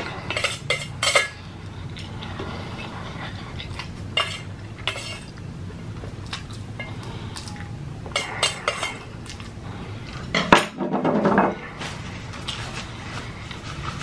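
Metal cutlery clinking and scraping against a dish in scattered strikes while ramen noodles are eaten, loudest about ten and a half seconds in. A low steady hum runs underneath.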